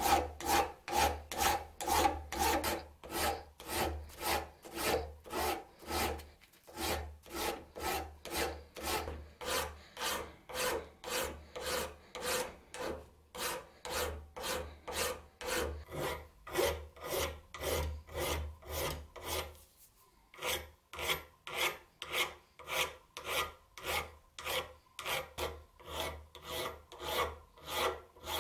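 Flat hand file rasping across the steel head of an old hand-forged hammer clamped in a bench vise, smoothing off rust and pitting. The strokes are quick and even, about two a second, with a short break about twenty seconds in.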